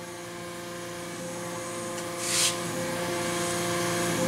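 A steady mechanical whine holding one pitch and slowly growing louder, with a short hiss about two seconds in.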